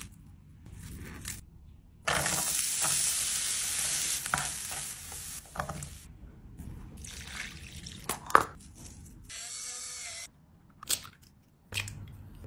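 Food sizzling and being stirred in a frying pan, heard in short cut-together clips, with a loud stretch of sizzling from about two seconds in lasting some three seconds. A single sharp knock comes about eight seconds in.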